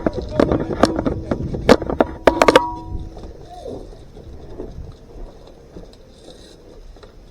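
Airsoft shots and BB hits: a quick, irregular string of sharp cracks and clangs over the first two and a half seconds, with a metallic ringing tone hanging under them, then it goes quiet.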